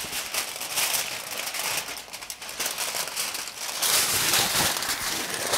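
Aluminium foil crinkling and crackling as hands fold and crumple a second layer of it tightly around a wrapped joint of meat, a dense run of irregular crackles that gets a little louder about four seconds in.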